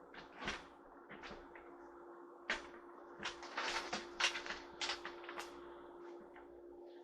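A scatter of light plastic clicks and knocks from a laptop cooler and laptop being handled and set in place, over a steady low hum.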